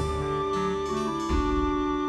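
Background music of sustained keyboard chords, moving to a new chord a little over a second in.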